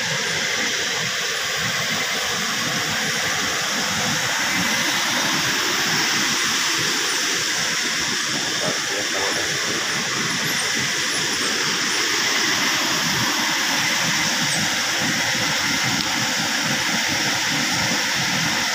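Fast-flowing river rushing over rocks and rapids: a steady, loud noise of churning water that does not let up.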